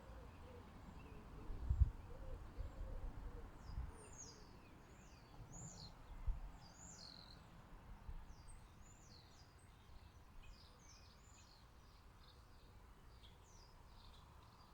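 Small garden birds chirping: a quick run of short, high, downward-sweeping calls, several a second, starting a few seconds in. Two low thumps stand out, one near the start and one in the middle.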